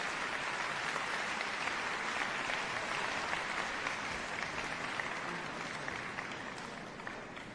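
Large audience applauding in a concert hall, a dense steady clapping that fades away near the end.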